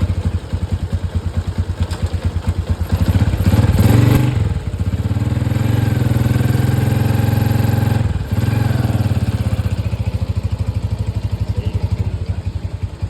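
Motorcycle engine running at a pulsing idle. About three seconds in it is revved, held at a higher speed for a few seconds, and about eight seconds in it drops back to idle.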